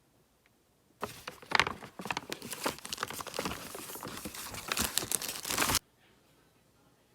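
Crinkling and rustling of wrapping being handled, starting abruptly about a second in and cutting off abruptly about a second before the end.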